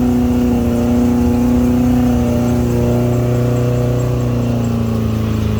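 Off-road 4x4's engine running at steady revs under load, its pitch dipping slightly near the end.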